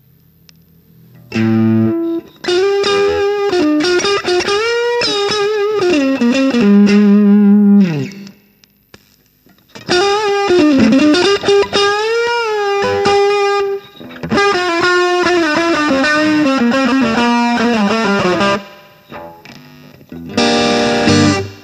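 Electric guitar played through an ARP Electronic Super Crunch overdrive pedal, the pedal switched on and giving a distorted, crunchy tone. Single-note lead phrases with string bends and vibrato come in four runs separated by short pauses.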